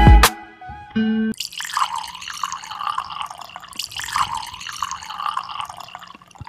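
Chocolate drink poured from a plastic jug into a glass mug: a steady splashing pour lasting several seconds. It is preceded by two short, loud bursts of music in the first second or so.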